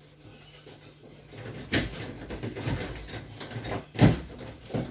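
Handling noise of fridge parts being fitted back into place: scraping and clatter, with a sharp knock about four seconds in and another near the end.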